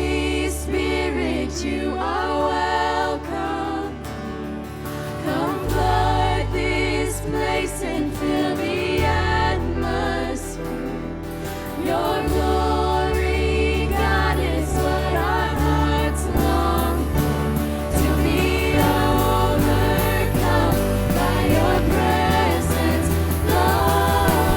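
Live worship band and singers performing a Christian worship song, voices over a sustained bass and band accompaniment.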